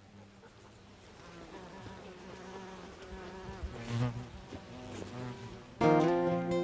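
Flying insects buzzing, the buzz wavering in pitch and swelling louder as they pass close by. Acoustic guitar music starts abruptly near the end.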